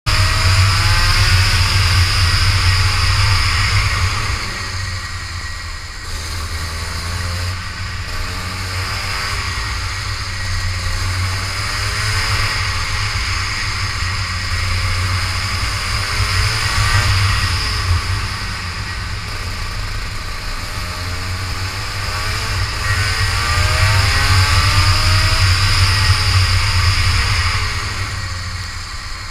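Rotax Max Senior 125cc two-stroke kart engine recorded onboard, revving up along the straights and dropping back for the corners again and again. A steady hiss of wind and wet-track spray runs under it.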